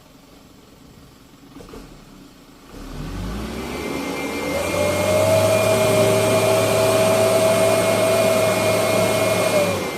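Loaded dump truck's engine revving up about three seconds in and held at high revs for several seconds, straining to pull the truck up a muddy road. The revs drop off just before the end.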